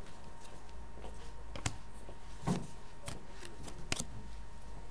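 Hockey cards being handled: a few light clicks and taps, the loudest a soft knock about halfway through, over a steady low hum.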